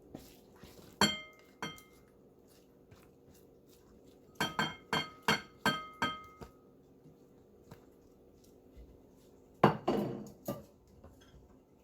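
Serving utensils clinking against a dish while salad is served: two ringing clinks, then a quick run of about six, and a louder knock and a few clinks near the end.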